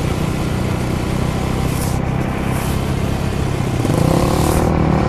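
Motor vehicle engine running while moving down a street, with wind rushing past. About four seconds in, the engine pitch rises as it speeds up.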